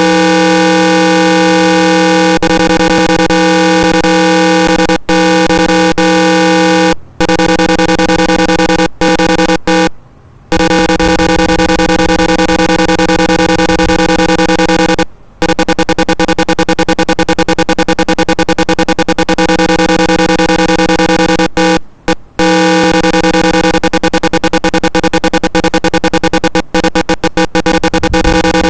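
Alarm tone from a simulated NE555 fire alarm circuit: a loud, harsh electronic buzz held at one pitch, the sign that the thermistor has sensed heat and triggered the alarm. It cuts out briefly several times and stutters rapidly through the second half.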